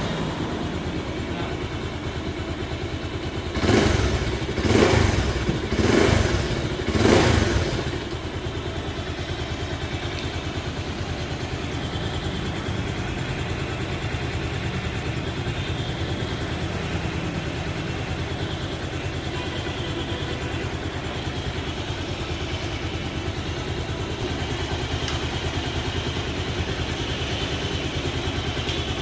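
Bajaj Pulsar 220's single-cylinder engine idling, blipped four times in quick succession about a second apart a few seconds in, then settling back to a steady idle.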